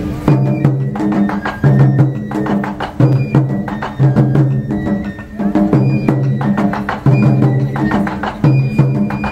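Music with a steady beat: short struck, pitched notes over a repeating bass line.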